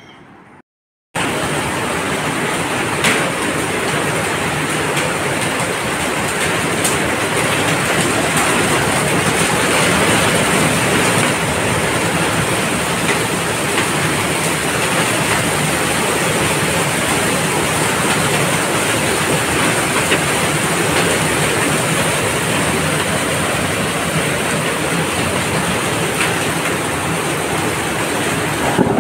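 Heavy rain pouring down onto a paved courtyard, a loud, steady, dense hiss that starts abruptly about a second in.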